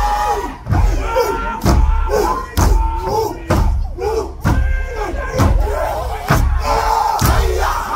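A group of performers chanting a Māori haka in unison, with a heavy stamp about once a second.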